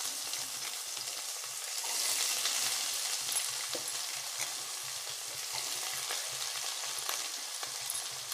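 Chopped onions frying in hot oil with cumin seeds in a kadai: a steady sizzle, with scattered scrapes and taps of a wooden spatula stirring them.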